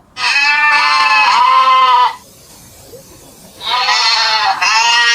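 Goat bleating: two long, wavering bleats, the second starting about three and a half seconds in.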